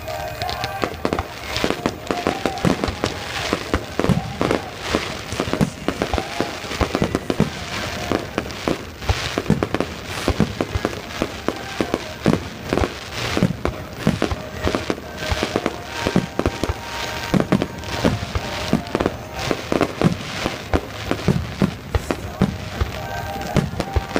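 Aerial fireworks bursting in a rapid, continuous barrage of bangs and crackles, several a second, with music playing underneath.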